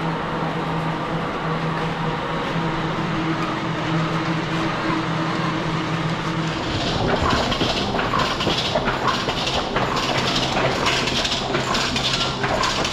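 Egg-packing machinery running. A steady hum changes abruptly about seven seconds in to a dense, fast mechanical clatter.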